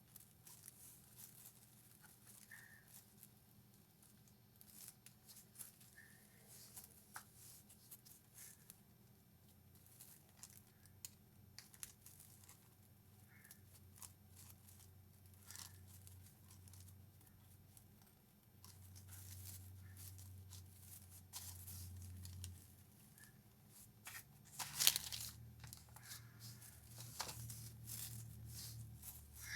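Craft materials rustling and crinkling as they are handled, with scattered light clicks and snips and a louder rustle about 25 seconds in, over a faint low hum.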